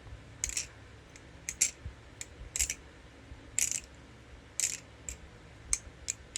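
Kraken balisong (butterfly knife) held by one handle while the free handle swings on its pivot and clacks, giving sharp metallic clicks about once a second, one of them doubled. The pivots are unoiled.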